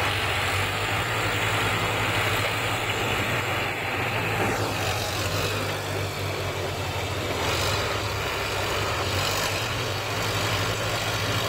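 Diesel tractor engines running steadily while a tractor tows a loaded earth trailer through mud. A higher rushing noise over the engine eases off about four seconds in and comes back about three seconds later.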